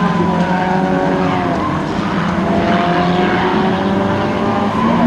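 Engines of several rokkiralli race cars, old saloon cars, revving hard together at different pitches as they race around the track.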